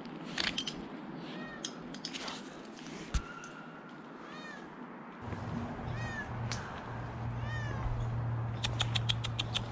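A cat stranded high in a tree meowing over and over in short rising-and-falling calls. A low steady hum comes in about halfway, and near the end there is a quick run of sharp clicks.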